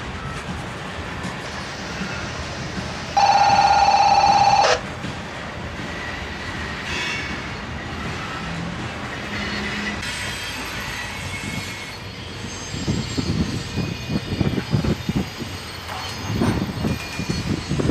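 Loaded coal hopper cars of a freight train rolling past on the rails, with a loud, steady, high-pitched wheel squeal lasting about a second and a half a few seconds in. After a cut near the middle, an uneven low rumbling rises and falls toward the end.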